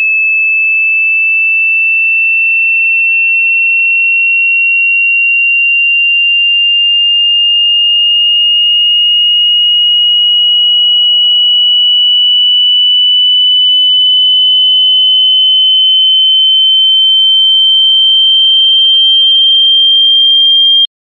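Telephone howler (off-hook warning) tone: a single pure tone gliding slowly upward in pitch and gradually growing louder, then cutting off suddenly near the end. It signals that a handset has been left off the hook, disabling the line.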